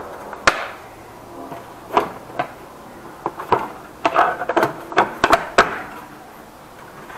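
Hard plastic tool cases being snapped shut and shifted about in a metal tool box drawer: a string of sharp clicks and knocks, thickest in the second half.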